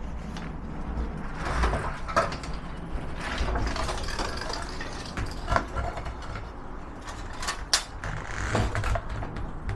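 Sawdust being dumped and spread in a chicken coop: patches of rustling and pouring noise broken by scattered knocks and clicks.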